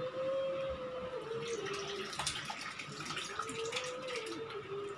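Whey from lemon-curdled milk pouring out of a steel pot through a muslin cloth and strainer into a bowl: a steady splashing stream of liquid as the chhena is strained off.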